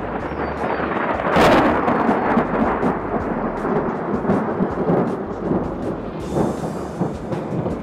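Thunderstorm: a loud thunderclap breaks about a second and a half in and rolls on as a long rumble, with rain falling and scattered close clicks of drops.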